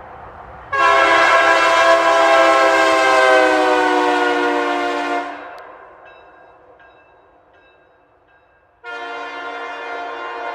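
Nathan Airchime K3LA-R2 locomotive air horn sounding a long, loud chord blast that sags slightly in pitch and cuts off after about four and a half seconds, leaving a fading tail. A few seconds later a second, quieter blast starts and holds.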